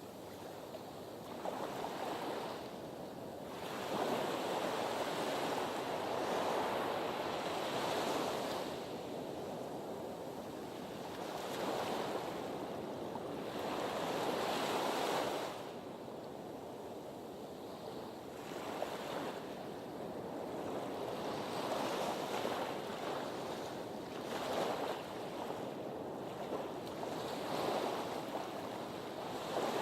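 Ocean surf, waves washing in and drawing back so the sound swells and fades every few seconds.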